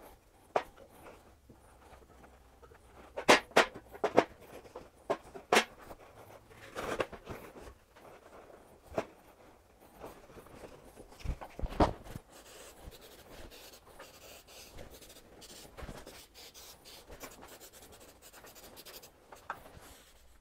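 Paper shop towels rustling and rubbing as small steel plow shoes are handled on a steel welding table, with sharp clinks and knocks of metal set down on metal, a cluster of them about three to six seconds in and more around twelve seconds in.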